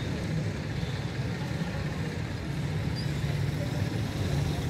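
Steady low rumble of distant town traffic.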